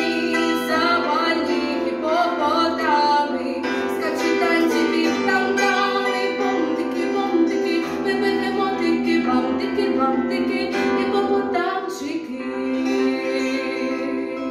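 A woman singing a lively children's song in Ukrainian, accompanying herself on a bandura whose plucked strings ring under the voice.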